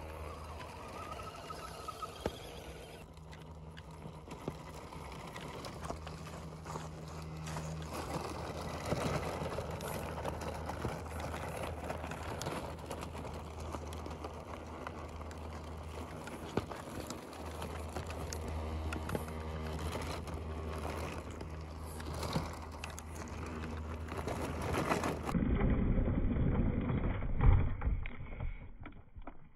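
Small electric motors and gear trains of RC crawler trucks whirring as they drive over rough off-road ground, with a steady low hum and scattered clicks and knocks from the chassis and tyres on rock. About 25 seconds in, the sound turns duller, and a sharp knock comes near the end.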